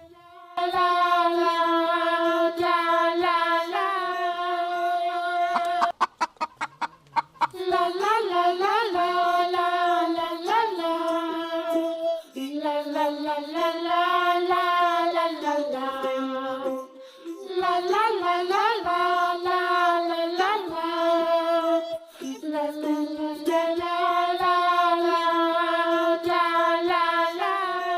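Background music: a simple single-line melody in repeated phrases, with a brief break about six seconds in.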